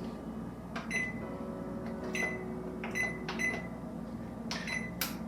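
Electronic oven control panel beeping as its buttons are pressed to set 350 degrees: about six short clicks, each with a brief high beep, spaced irregularly over a few seconds.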